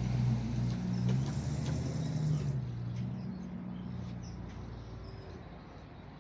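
A car engine running close by, a low steady hum that fades away over several seconds as the car moves off.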